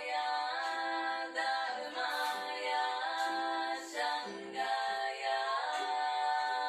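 Background music: a woman's voice singing a slow melody in long held notes.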